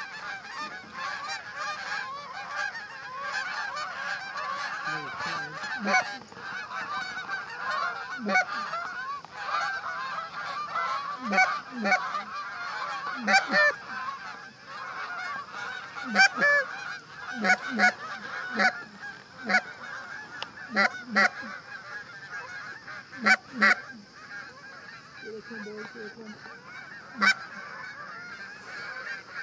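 Canada geese honking: a flock's continuous distant chatter, with louder single honks and clucks breaking in every second or two from about six seconds in.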